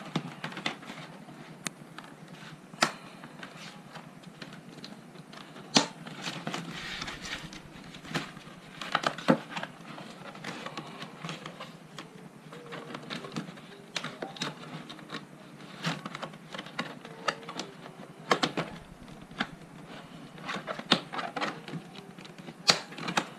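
Folding white panels of a mini photo-studio light box being handled and pressed together at their snap fasteners: irregular sharp clicks and knocks with rustling and scraping in between.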